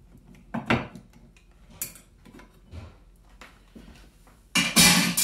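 Small screwdriver backing out the screws of a solid brass switch cover plate and the plate being lifted off: scattered light metallic clicks and scrapes, a sharper knock under a second in, and a louder burst of handling noise near the end.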